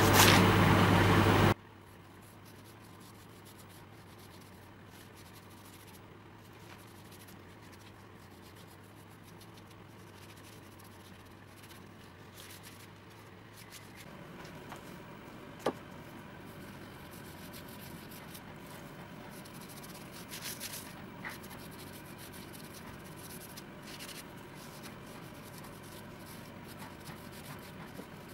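A loud steady noise with a low hum for the first second and a half cuts off suddenly. Then comes the faint rubbing of a bristle brush spreading teak oil over bare oak, a little stronger in the second half, with one sharp click partway through.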